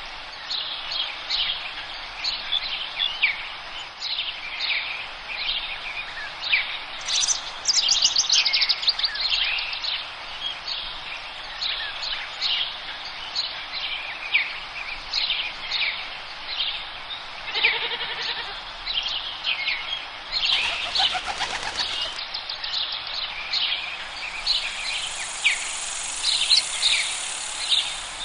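Forest birdsong: many small songbirds chirping and singing over one another, with a fast falling trill about seven seconds in.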